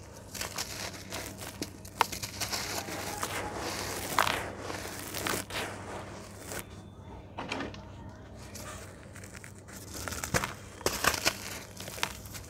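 Hands crushing and crumbling lumps of red clay: a gritty, crunching crackle with many sharp snaps as pieces break apart and grit falls into the basin.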